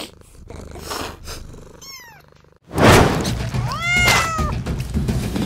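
Kitten meowing twice: a short, fainter meow falling in pitch about two seconds in, then a longer, louder meow that rises and falls near the end. A sudden loud rush of noise comes in just before the second meow.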